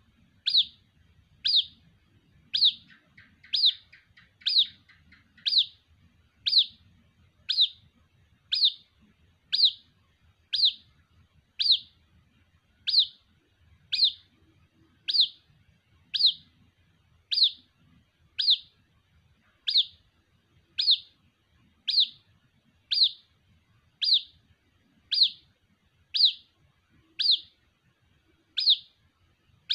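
White-breasted waterhen chick calling for its parent: a high, thin peep repeated steadily about once a second, each note sliding slightly down in pitch.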